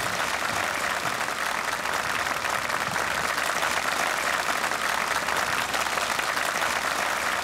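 A crowd applauding, a steady dense clapping.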